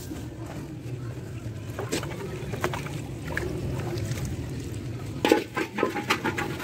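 A steady low hum, with scattered clicks and a cluster of sharp knocks about five seconds in.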